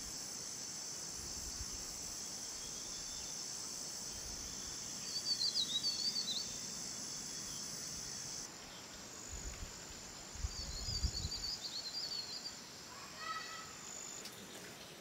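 Steady high-pitched insect chorus, dropping in level about eight seconds in, with a bird twittering twice, about five seconds in and again around ten seconds, and a brief pitched call near the end.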